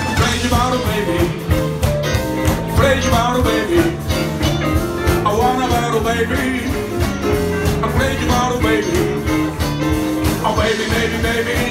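Band playing an upbeat jump blues number: a bass line stepping note to note under a steady beat, with a voice singing over it.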